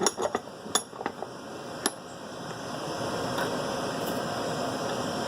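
A few sharp metallic clicks and knocks in the first two seconds as wire ends are set and clamped in a bench vise, over the steady hiss and hum of the broadcast transmitters running in the shop, which grows a little louder near the middle.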